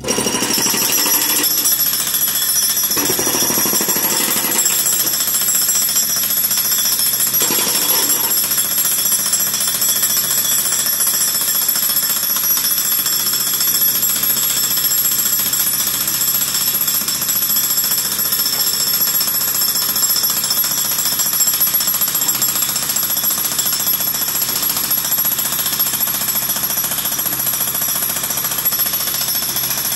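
Hydraulic breaker hammer on a John Deere compact excavator pounding on concrete, breaking it up. The hammering is fast and steady, with a high ringing edge.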